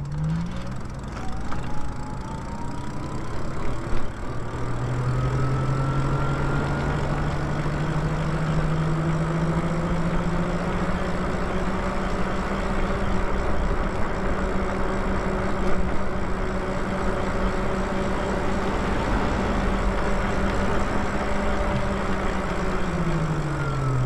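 Lyric Cycles e-bike's electric motor whining under power, its pitch rising as the bike speeds up over the first several seconds, holding steady at cruising speed, then falling near the end as it slows. Wind and tyre rush run underneath.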